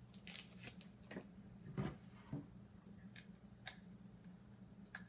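Small plastic clicks and light knocks of a handheld scanner and its antenna being handled while the antenna is fitted onto the set, with one louder knock just under two seconds in and a smaller one just after. A faint steady low hum runs underneath.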